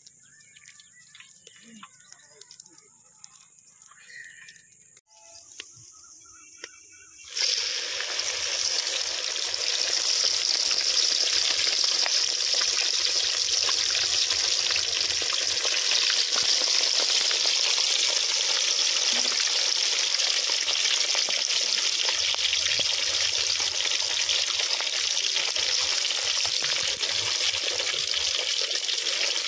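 Pieces of fish deep-frying in a wide aluminium pan of hot oil over a wood fire: a loud, steady sizzle that starts suddenly about seven seconds in, after a few seconds of faint sounds.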